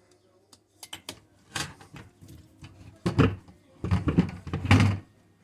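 Hands handling a strimmer's spark plug and plug cap: a few small clicks about a second in, then several louder scraping knocks and rustles between about three and five seconds in.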